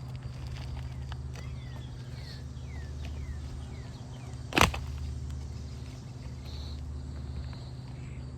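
Steady low background rumble with faint high chirps, broken about halfway through by a single sharp knock, the loudest sound.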